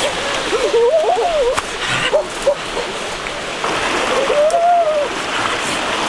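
Water splashing as a person wades through a shallow rocky stream, over the steady rush of the stream. Short wordless vocal sounds rise and fall a few times.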